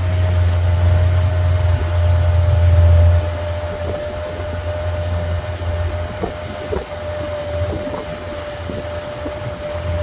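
Boat's outboard motor running steadily, a low drone with a steady whine above it, easing down in level about three seconds in.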